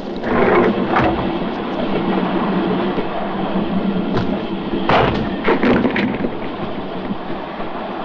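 Passenger train running with a steady rumble, broken by a few loud bangs and thuds near the start and again between about four and six seconds in.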